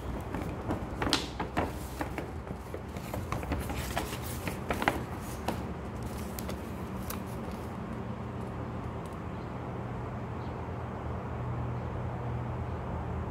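Paper rustling and crinkling in a string of sharp crackles as a folded paper receipt is handled and unfolded, settling after about seven seconds into a steady low hum.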